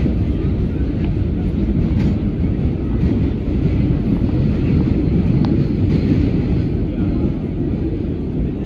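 Vintage R1/9 subway train running on the rails: a steady low rumble with a few faint clicks.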